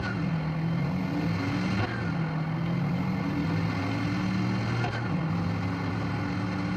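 A motor vehicle's engine running steadily, its low hum shifting up and down in pitch every second or two.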